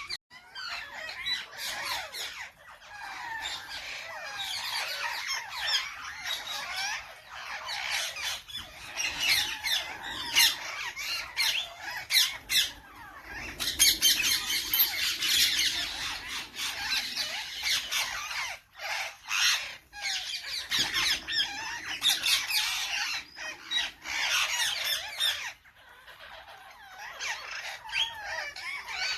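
Parrots squawking and chattering non-stop, many calls overlapping, busiest about halfway through.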